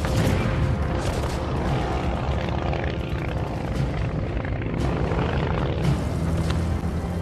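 A World War I biplane's propeller engine drones steadily as it flies overhead, under an orchestral film score.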